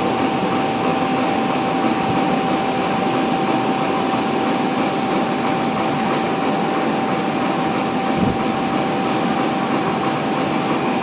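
Richpeace automatic template sewing machine running, stitching collar pieces as its head travels around the template: a dense, steady mechanical clatter with a steady high whine.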